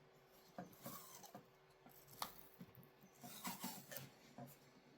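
Faint handling noises from a vehicle wiring harness being worked with cloth wiring-loom tape: scattered light clicks and short rustles.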